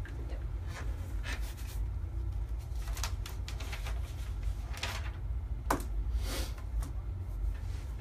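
Sheets of paper rustling as they are handled, with a few small clicks and knocks scattered through, over a steady low hum.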